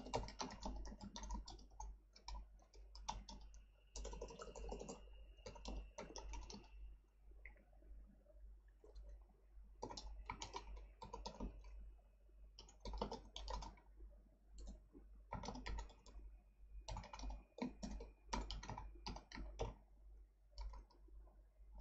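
Typing on a computer keyboard in quick bursts of keystrokes, broken by short pauses.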